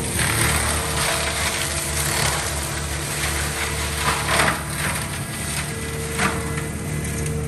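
Compact track loader's diesel engine running under load with its Gyro-Trac 500 HF high-flow mulching head grinding brush: a steady drone under a rushing hiss of wood being shredded, with loud cracks of splintering wood about four seconds in and again about six seconds in.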